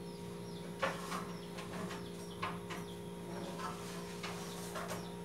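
Scattered light knocks and clatter of household items being moved about inside a low kitchen cabinet, about seven short taps spread unevenly, over a steady hum.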